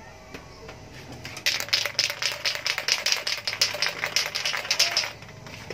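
Aerosol spray-paint can being shaken hard, its mixing ball rattling in quick even clicks, about seven a second, from about a second and a half in for nearly four seconds: the paint is being mixed before spraying.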